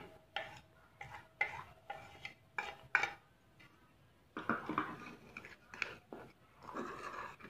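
Metal spoon clinking and scraping on a ceramic plate as ground spices are knocked off into a bowl, a string of sharp clinks over the first three seconds. Then the spoon scrapes around the bowl as the dry spices are stirred together.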